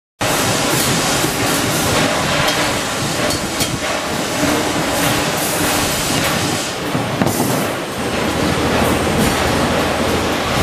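Steady factory machinery noise with frequent sharp metallic clinks and rattles of steel wire baskets knocking against each other and against a steel rack as they are hung up.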